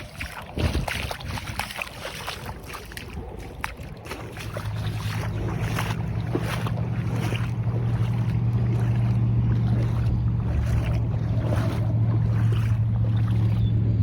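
A motor's steady low drone that comes in about four seconds in and grows louder, then holds, with wind crackling on the microphone.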